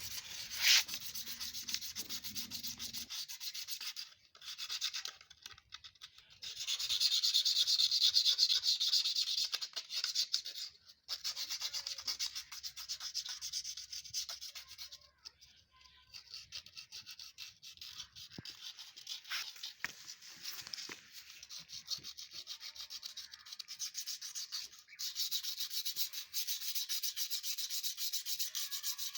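Rapid back-and-forth rubbing strokes of a motorcycle's drum brake parts being scrubbed clean, in spells broken by short pauses. The cleaning is meant to cure a squeaking brake.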